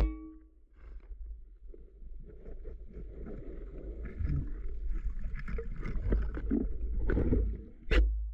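Speargun shot heard underwater: a sharp click with a brief metallic ring at the start. It is followed by muffled underwater rumbling and scattered knocking and clattering, with another sharp click near the end.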